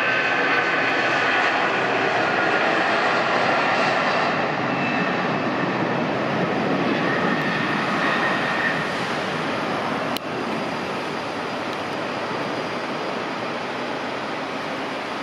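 Jet engines of a Boeing 757-200 freighter at takeoff power as it climbs away, a broad steady rush with a whine that fades in the first half, the whole sound slowly growing fainter. A single sharp click about ten seconds in.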